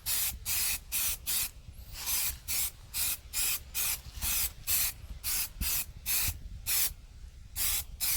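Aerosol spray can of filler primer hissing in short, even bursts, about two and a half a second, as the nozzle is pressed and let go to lay light coats without runs.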